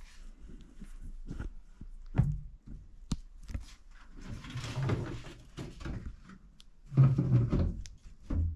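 Irregular knocks and thumps of objects being handled and set down, with a longer rustle about halfway through; the loudest, heaviest thumps come about seven seconds in.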